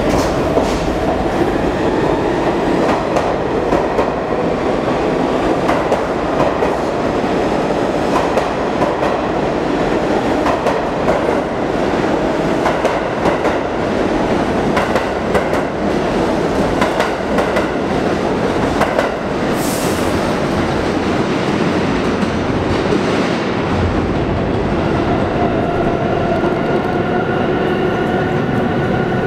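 R46 subway train pulling out and running past. Its traction motors whine up in pitch at first, then it settles into a steady rumble with wheels clattering over rail joints. Near the end a steadier, even humming tone sets in.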